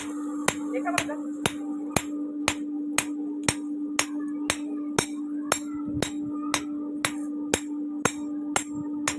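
Hammer striking metal at an even pace of about two blows a second, about eighteen blows in all, over a steady hum.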